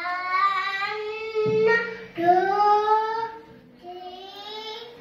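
A young child singing, long drawn-out notes sliding upward, in three phrases with short breaks between them.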